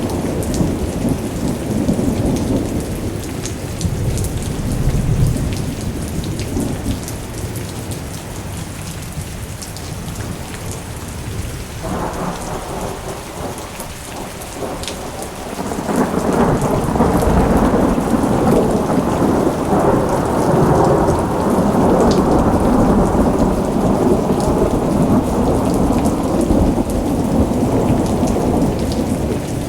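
Steady rain with rolling thunder: a low rumble swells about five seconds in, and a longer, louder rumble begins a little past halfway and rolls on for most of the rest.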